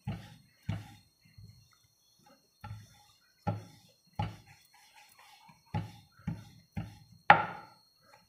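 Wooden rolling pin rolling out pizza dough on a round wooden board, making about ten short wooden knocks and thuds at uneven intervals as it is pushed back and forth, the loudest one near the end.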